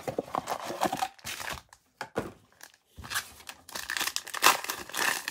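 Trading-card packs in crinkly wrappers rustling as they are pulled from a Panini Prizm blaster box, then, after a short lull, a pack wrapper crinkling as it is cut open with scissors.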